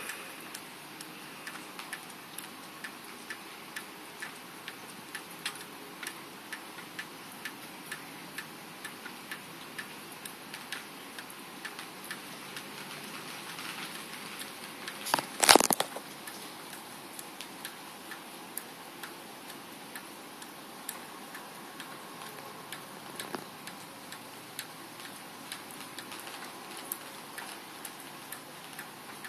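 Steady, regular ticking, about three ticks every two seconds, over a faint hiss. About halfway through comes a sharp crackling burst, much louder than the ticks.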